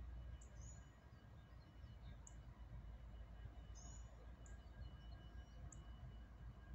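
Near silence: faint outdoor ambience with a steady low rumble and a few short, high bird chirps scattered through it.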